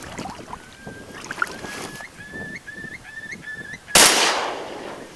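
A quick series of short, high whistled bird calls, each note ending in an upward flick, then one loud shotgun shot about four seconds in that rings away over about a second.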